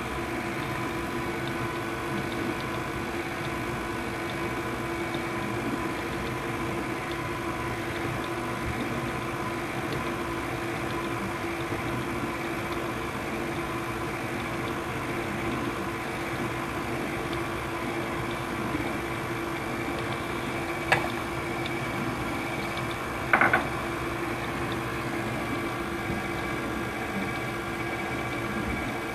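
KitchenAid stand mixer running steadily on low speed, its motor humming as the beater mixes thick cream cheese batter. Late on, a sharp click and, a couple of seconds later, a brief clatter stand out as the loudest sounds.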